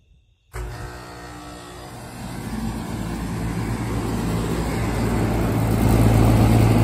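2013 Lennox split-system heat pump outdoor units starting up in cooling mode: a sudden start about half a second in with a steady low compressor hum, then a rushing noise that grows steadily louder as the condenser fan comes up to speed.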